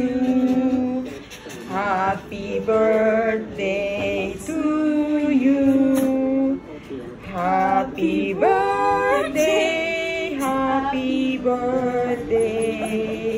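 Singing, led by a woman's voice, with music: a melodic line with held notes and pitch glides.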